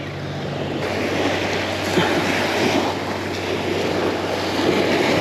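Small waves breaking and washing up over a sandy beach, a steady rush of surf that grows a little louder after about a second.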